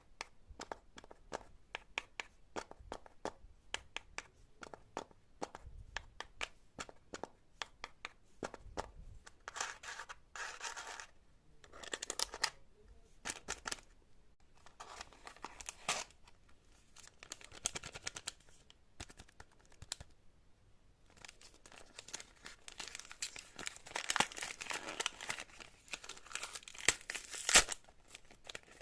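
Fidget board toys being worked by hand: many quick clicks in the first part, then bouts of crinkling and ripping, with one sharp louder snap near the end.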